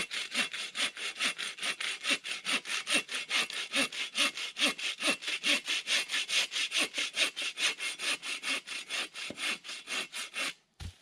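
Bow saw cutting through a dry log in quick, even back-and-forth strokes, each stroke a rasp of the teeth through the wood. The sawing stops shortly before the end, followed by a short low thump.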